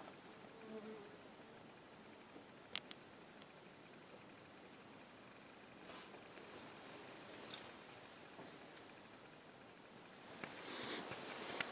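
Crickets chirping in a steady, fast, high trill, faint. There is a sharp click about three seconds in, and rustling near the end.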